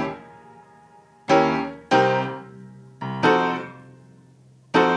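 Background piano music: chords struck about once every second or so, each left to ring out and fade before the next.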